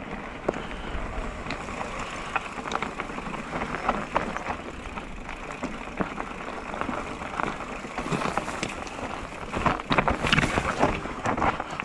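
Mountain bike rolling down a rocky dirt singletrack: tyres crunching over loose stones, with frequent clicks and rattles from the bike. It grows louder and busier about eight seconds in, as the trail gets rougher.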